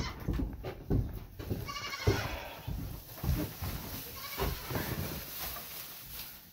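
A goat bleats once, a wavering call about two seconds in, over the rustle of straw being spread and a few dull knocks as it is packed into the stall.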